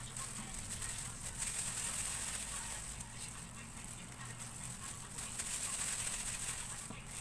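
Thin plastic food-prep gloves crinkling and rustling as hands knead and squeeze crumbly graham-cracker dough, over a steady hiss and low hum.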